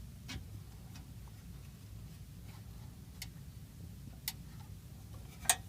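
A few sharp clicks and taps, four in all, the loudest near the end, over a steady low hum.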